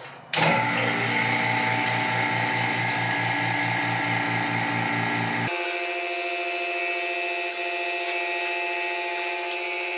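Electric rotary-vane vacuum pump switched on and running steadily, with a fast, even pulsing hum, as it pulls vacuum on the pressure pot. About halfway through, the low hum drops away and a thinner, higher running sound goes on.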